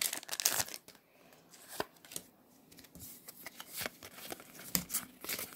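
Foil wrapper of a Pokémon card booster pack crinkling as it is torn open during the first second, then the stack of cards from it handled and slid in the hands, with soft flicks and clicks.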